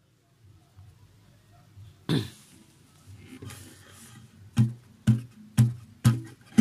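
Lead-in to an acoustic guitar song: a faint low hum, one sharp loud sound about two seconds in, then four short, evenly spaced strums about two a second, like a count-in before the full strumming.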